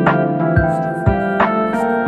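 Background music: sustained keyboard chords over a slow, steady drum beat.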